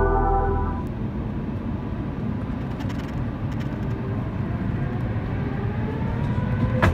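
Airbus A350-900 jet engines heard from inside the cabin, spooling up for takeoff: a steady low rumble, with a whine that rises in pitch over the last few seconds.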